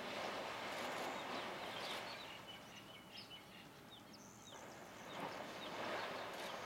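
African elephants splashing in a shallow, muddy waterhole, the splashing swelling in the first couple of seconds and again near the end. Short, high bird chirps come over it.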